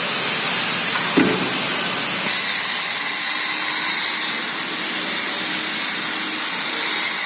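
A PLC-controlled pneumatic vacuum cleaner machine running with a steady air hiss. There is a click about a second in, and a bit after two seconds the hiss jumps suddenly louder and higher, then holds steady.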